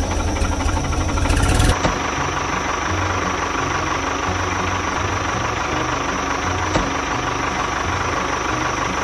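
Tractor engine running with a rapid, even chug: it runs harder and louder for about the first two seconds, then drops suddenly to a steady idle.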